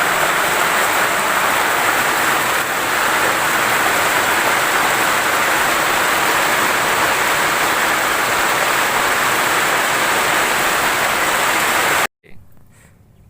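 Steady, loud hiss of heavy rain, which cuts off suddenly about twelve seconds in, leaving only faint background sound.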